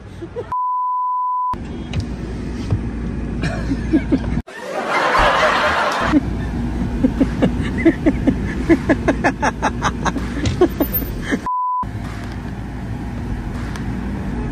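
Censor bleep: a steady high beep of about a second, starting about half a second in, and a second, shorter one near the end, each blanking the sound around it. Between them, voices and laughter over street traffic noise.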